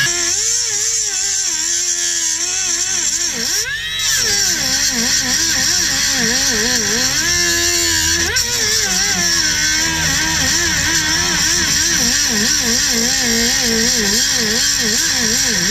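Angle grinder cutting into a sway bar end link, its motor whine wavering up and down as the load on the disc changes. The sound dips briefly about four seconds in, then the grinder picks back up to speed.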